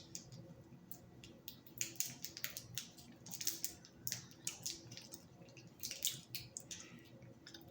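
Faint, irregular crinkling and clicking of a ginger chew's candy wrapper being handled and picked at.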